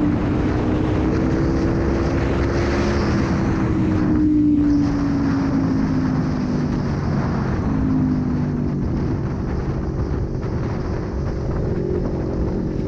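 Aprilia Tuono 1100's V4 engine running under way, its pitch easing slowly downward, with a brief drop in the sound about four and a half seconds in, under steady wind noise on the microphone.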